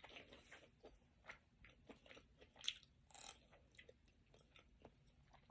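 Faint chewing and mouth sounds of a person eating, with scattered soft clicks and a few slightly louder bites.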